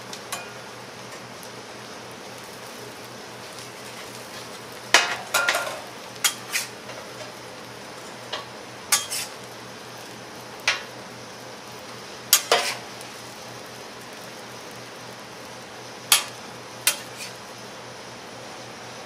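Metal kitchen utensils clattering against cookware: scattered sharp clinks and clanks, some in quick pairs and triples, over a steady background hiss.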